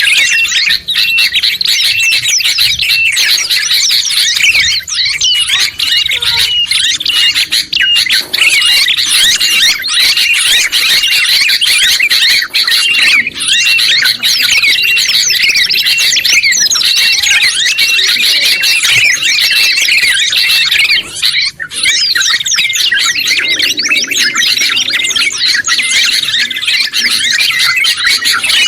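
Dense, continuous chorus of small songbirds chirping and trilling over one another, with a short high note repeated many times. It is a mixed birdsong recording of yellow-vented bulbul, sooty-headed bulbul, white-eye and prinia, made for training caged birds to sing.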